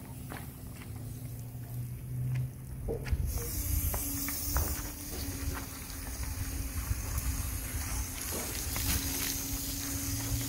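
Water hissing out of a hose-fed wash brush as it scrubs a car's wet body panels: the spray starts about three seconds in and stays on steadily, with the brush's scrubbing strokes and light knocks against the car.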